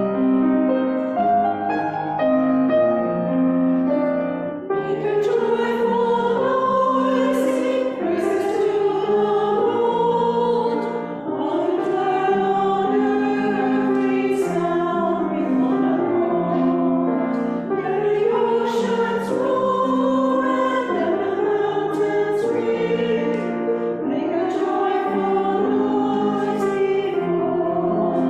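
Small group of women singing together with piano accompaniment. The piano plays alone at first, and the voices come in about five seconds in.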